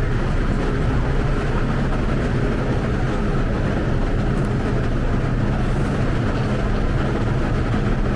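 Hong Kong MTR train running: a steady rumble with a constant low hum.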